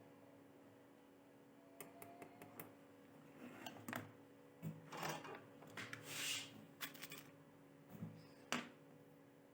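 Scattered clicks, taps and short rustles of small objects being handled, over a faint steady hum.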